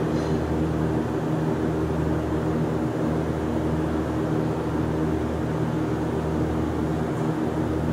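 Steady machine hum: a constant low drone with several even tones above it over a rushing noise, unchanging throughout.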